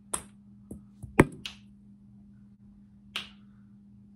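Sharp, light clicks of a golf club striking a ping pong ball and the hollow plastic ball bouncing: a quick cluster of clicks in the first second and a half, the loudest a little after a second in, and one more about three seconds in.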